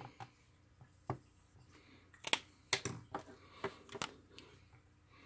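Dry-erase marker drawing a line on a whiteboard: a string of faint scratches and taps, and the marker laid down on the board.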